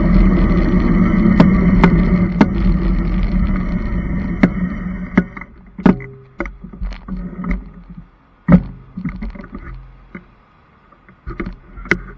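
Magnum Premium e-bike riding along: rushing wind and tyre noise with a steady motor whine, dying away about five seconds in as the bike slows to a stop. After that come scattered sharp clicks and knocks, one louder knock about eight and a half seconds in.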